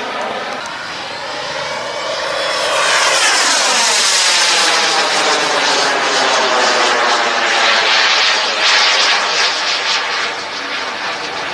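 Model jet turbine (an 18 kg-thrust King Tech) powering a Carf Model Viper Jet in flight, a continuous whine that grows louder about three seconds in and sweeps down in pitch as the jet passes, then stays loud.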